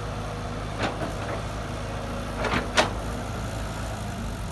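Heavy diesel engine of earthmoving machinery running steadily at low revs, with a few short clacks, the loudest near three seconds in.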